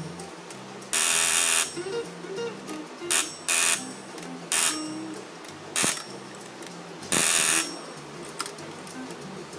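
Electric buzzer of a vintage Stanley & Patterson annunciator sounding in six short harsh bursts as its call switches are pressed, the longest about a second in and another near the end. Background music plays underneath.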